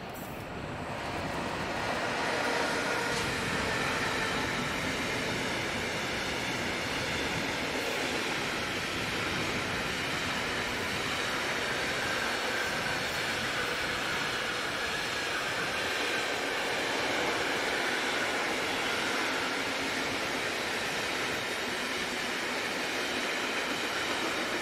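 A train rolling past on the line, the steady noise of its wheels on the rails rising about two seconds in and then holding even.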